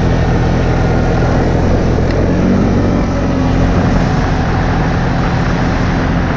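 Vehicle engine running steadily at an even speed, with a haze of road and wind noise.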